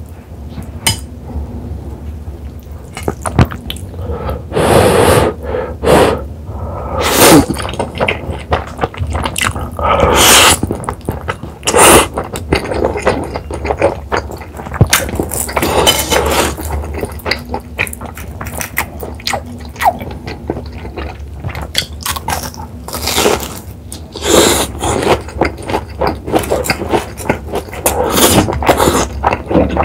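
Close-up eating sounds of Buldak spicy stir-fried noodles: several loud slurps, with wet chewing and mouth clicks between them.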